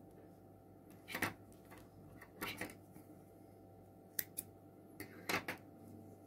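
Scissors snipping through yarn: several short, sharp cuts spread over a few seconds, cutting off the thread after the crocheted chain.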